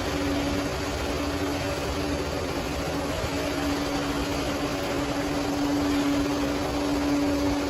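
Bulldozer's diesel engine running steadily, with a steady tonal hum over the engine noise that drops away for a couple of seconds about a second in, then returns.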